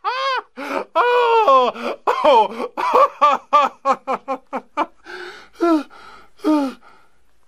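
A young child's high-pitched voice: a quick run of short squeals and cries, each rising and falling in pitch, thinning out near the end.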